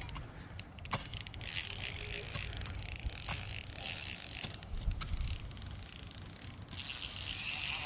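Spinning reel working against a hooked fish snagged in a submerged tree: runs of fine, rapid clicking near the start and again about five seconds in, with a high whirring between them.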